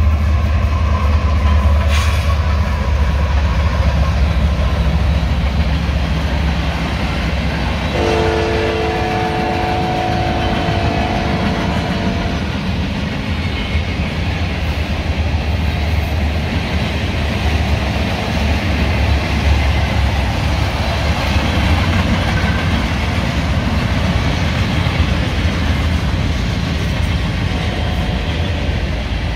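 Union Pacific freight train rolling past: a heavy, steady rumble of locomotives and wheels on the rails, with some clatter. About eight seconds in, the diesel locomotive's air horn sounds one steady multi-note chord for about four seconds.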